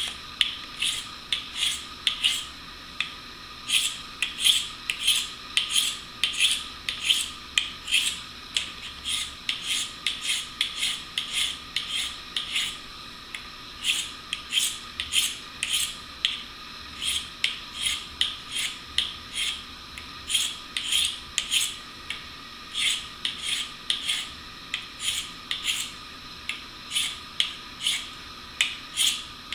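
A steel blade stroked repeatedly across the coarse side of a sharpening stone with firm pressure, about two scraping strokes a second.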